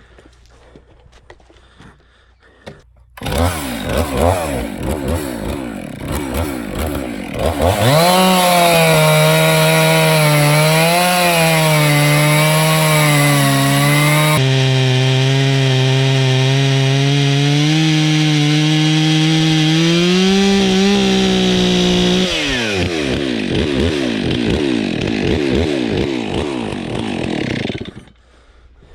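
Chainsaw engine coming on about three seconds in and running at idle with blips, then opened to full throttle and cutting along a log for about fourteen seconds, its pitch wavering as the chain loads in the wood. Near the end it drops back to idle and shuts off abruptly.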